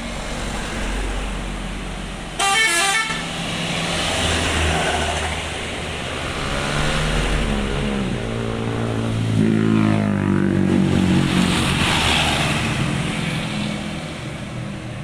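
A passing bus sounds a basuri multi-tone musical horn, its notes stepping up and down in a melody for several seconds over engine and road noise. A short, loud, warbling horn blast comes about two and a half seconds in.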